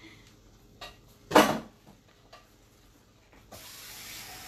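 A single sharp knock of kitchenware about a second and a half in, with a few light clicks around it. Then, from about three and a half seconds in, a steady sizzling hiss starts suddenly from the hot pan of chili-and-meat enchilada filling.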